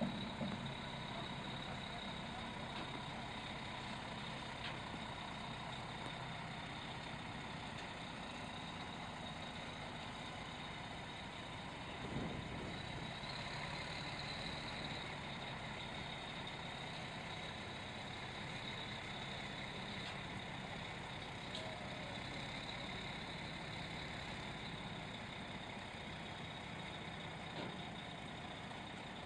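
Diesel engine of a heavy-haulage truck tractor running steadily at low revs as it creeps along, pulling a long trailer loaded with a prestressed concrete beam. A steady high-pitched whine sits over the engine hum.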